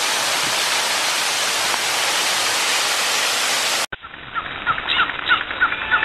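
Waterfall rushing steadily, then cut off suddenly about four seconds in and replaced by a thinner-sounding track with a run of short, quick chirps.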